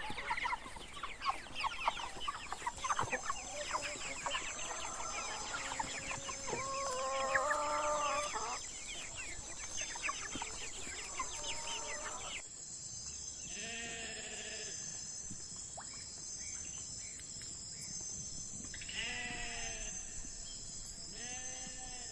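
A flock of chickens clucking busily, with one louder drawn-out call midway; then, after a cut, an animal bleating three times, several seconds apart.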